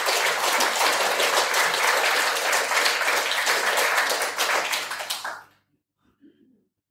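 Audience applauding, a dense patter of many hands clapping that dies away about five and a half seconds in.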